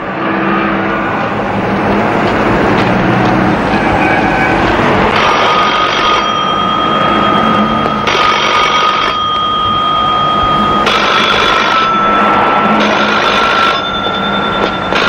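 A bell-like ringing in bursts about a second long, repeating roughly every three seconds from about five seconds in, over a steady noisy background.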